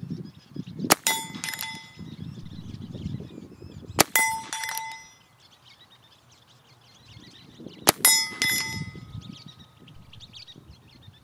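Three shots from a Heritage Rough Rider .22 single-action revolver with a 16-inch barrel, about four seconds apart, each followed about half a second later by the ring of a steel target plate being hit at 100 yards.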